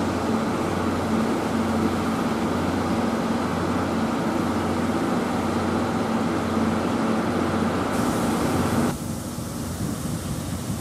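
A steady mechanical hum with a low drone at two fixed pitches. About nine seconds in it cuts off abruptly, giving way to quieter, even noise.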